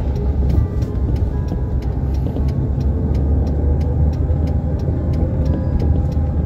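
Car interior while driving: a steady low engine and road rumble heard from inside the cabin, with faint scattered ticks.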